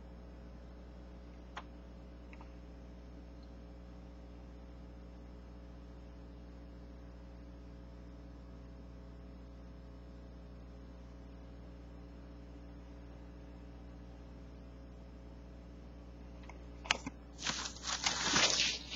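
Steady low electrical hum with a faint click about one and a half seconds in. Near the end, loud rustling of glossy paper as a page of a store sales circular is turned.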